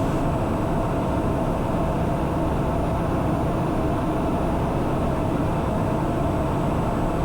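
Socata TBM 910 single-engine turboprop heard from the cockpit on final approach: a steady drone of engine, propeller and airflow, with a faint steady hum.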